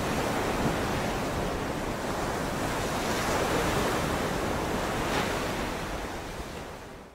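Ocean surf washing onto a beach, a steady rush of waves with slow swells that fades out near the end.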